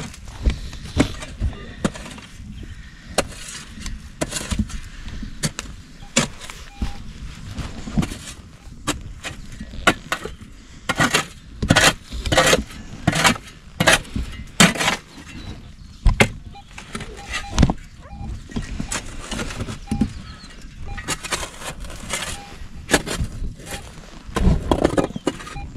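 Hand digging tool striking and scraping soil and stones in a pit: irregular knocks and scrapes, with a run of harder strikes around the middle.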